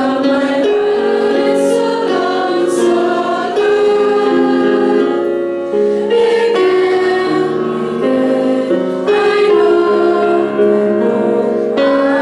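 Choir of young teenage schoolchildren singing a melody in held notes, accompanied by an electronic keyboard.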